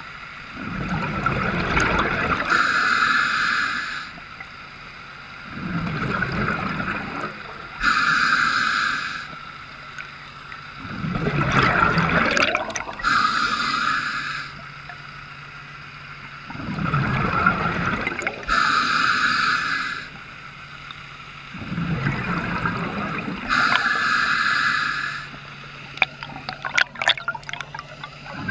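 A scuba diver breathing through a regulator underwater: each breath is a hiss on the inhale and a gurgling rush of exhaust bubbles on the exhale, about one breath every five seconds.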